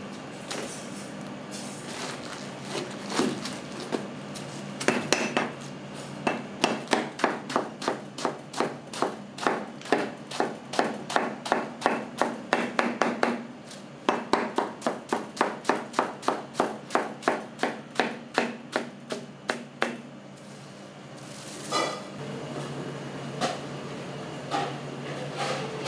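Kitchen knife chopping on a cutting board in quick, even strokes, about four a second, in two long runs broken by a short pause about halfway through.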